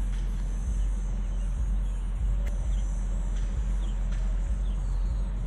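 Steady low rumble of outdoor background noise, with a few faint, short high chirps now and then.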